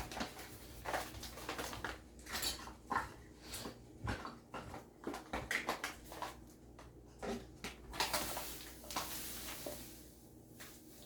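Clinks and scrapes of a measuring cup as granulated sugar is scooped and measured, with a short hiss of sugar pouring about eight seconds in.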